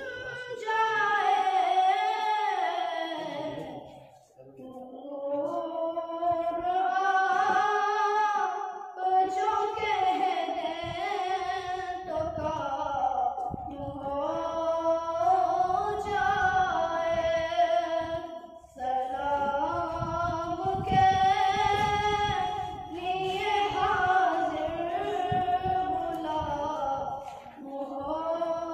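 A boy singing a naat, an Urdu devotional poem in praise of the Prophet, solo in long held melodic lines with a few short breaks between them.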